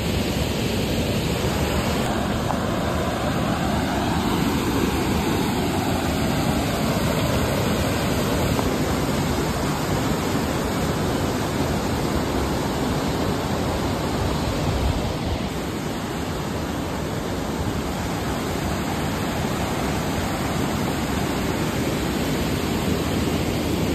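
Steady rushing of water spilling through a dam, an even noise that eases a little about two-thirds of the way in.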